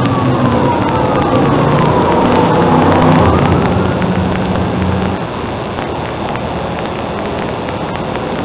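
A road vehicle going by: a low engine hum with thin tones that glide slowly down and then back up, heard for about five seconds over a steady hiss, then only the hiss remains.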